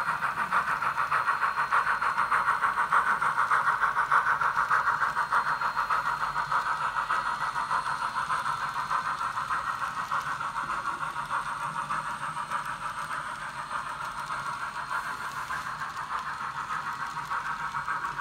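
Digital steam sound from the ESU LokSound decoder in a Kato N scale Union Pacific FEF-3 4-8-4 model locomotive: steady, rhythmic exhaust chuffing from the model's small onboard speaker, slowly growing fainter as the locomotive pulls away.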